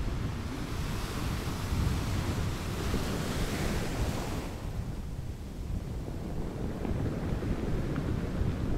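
Surf washing over shoreline rocks, a hiss that swells and dies away about four and a half seconds in, over a steady low rumble of wind on the microphone.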